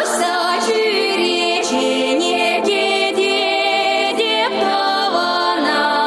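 Music: the opening of a Chuvash pop song, with a female singer's voice over the accompaniment.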